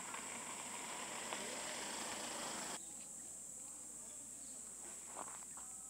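Woodland ambience with a steady high-pitched hiss. A louder rustling noise cuts off suddenly about three seconds in, followed by faint scratches and rustles in dry leaf litter where a Eurasian red squirrel is digging.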